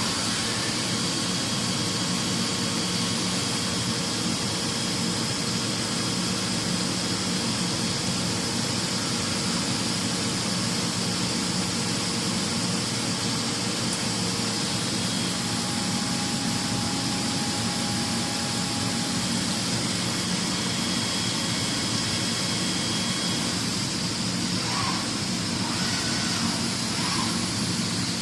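Fermat WFC 10 CNC horizontal boring mill running with a steady, even machine noise and a low hum.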